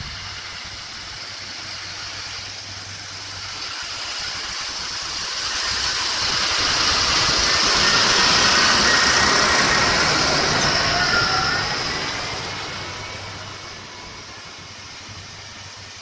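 A motor vehicle driving past: its sound grows louder to a peak about halfway through, then fades away.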